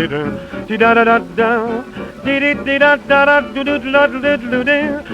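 Instrumental break of a 1932 hot-jazz dance-band record played from a 78 rpm shellac disc. A lead instrument carries the melody in a string of held notes with a wavering vibrato over the band and guitar accompaniment. The sound is dull, with no highs above about 4 kHz, as is usual for a 78 of that era.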